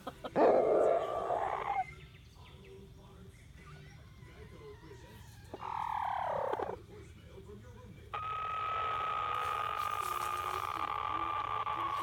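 Rooster making an odd call that sounds like a broken printer: a harsh squawk, then a falling call, then from about eight seconds in a long, steady, high drawn-out tone.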